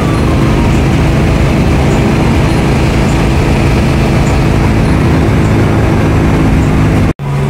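Coach bus at highway speed, about 129 km/h, heard from inside the driver's cab: a steady low engine drone under loud rushing road and wind noise. Near the end the sound cuts out completely for a split second.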